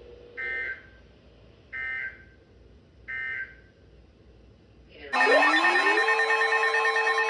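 Emergency Alert System header on NOAA Weather Radio: three short two-toned data bursts about a second and a half apart. About five seconds in, a loud steady alert tone starts, with a tone sliding up in pitch as it begins.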